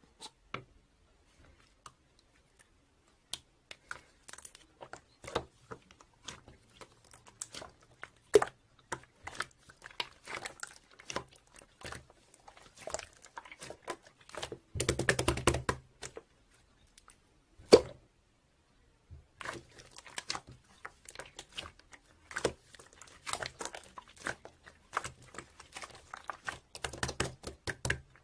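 Irregular small clicks, taps and crinkly handling noises close to the microphone, with a denser rustling stretch of about a second and a half midway and one sharp louder click shortly after.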